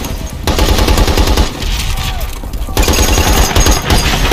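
M1919 Browning .30-caliber belt-fed machine gun firing in long bursts, with short pauses about half a second in and about two and a half seconds in.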